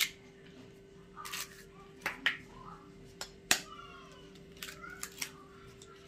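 Two eggs cracked on a metal fork over a plate of flour: a series of sharp taps as the shells break, with light clinks of the fork against the plate.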